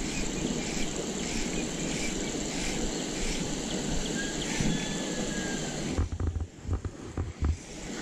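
Steady outdoor hiss with faint insect chirps repeating about twice a second. About six seconds in the hiss drops away and a series of short bumps and knocks follows as the camera is handled and turned.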